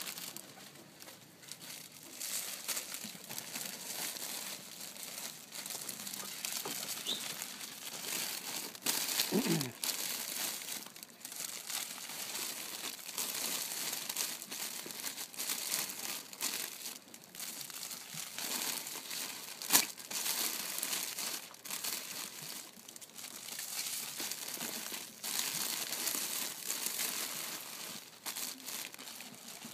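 Clear plastic flower sleeves crinkling and rustling steadily as wrapped hydrangea bunches are handled and packed into a cardboard box, with one sharp click a little under two-thirds of the way through.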